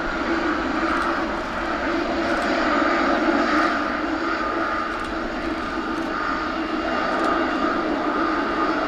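Boeing 777 freighter's GE90 turbofan engines running as the aircraft rolls out along the runway after landing, spoilers deployed. A steady loud jet noise with a mid-pitched hum, swelling slightly a few seconds in.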